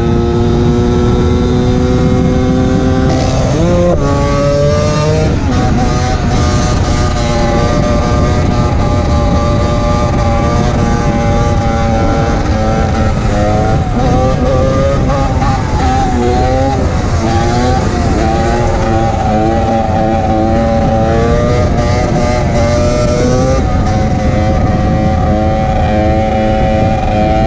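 Yamaha DT125X single-cylinder two-stroke motorcycle engine running hard. Its pitch drops and climbs again about four seconds in, then wavers up and down with the throttle.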